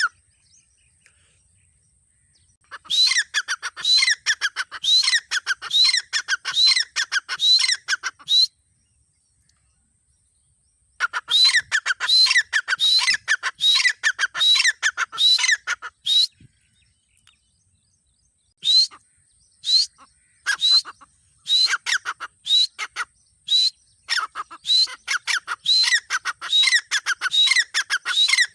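Female grey francolin (teetar) calling in rapid bouts of short, rising, squeaky notes, about five or six a second. There are three bouts, with short silences between; the last bout starts with a few spaced notes and then speeds up.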